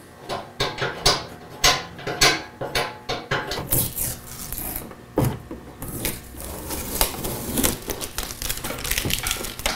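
Irregular clinks, knocks and rubbing from hands-on work on a steel bumper and the vehicle body, with sharp clicks every fraction of a second to a second.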